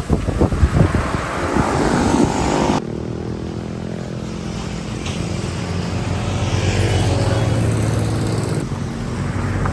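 Motorcycle engine running steadily under way. Uneven buffeting noise for the first three or so seconds cuts off suddenly, leaving the engine's steady drone, which swells slightly in the middle.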